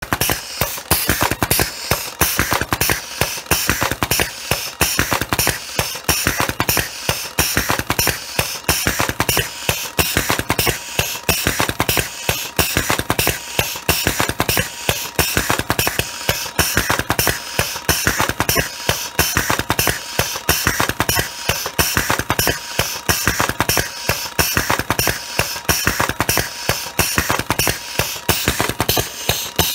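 COBRA cigarette tube filling machine running its automatic filling cycle: a fast, even clacking of its pneumatic pushers, about three strokes a second.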